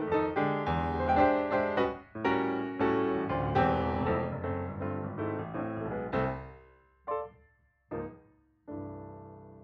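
Piano background music: a busy run of notes, then three separate chords near the end, the last one left ringing and fading.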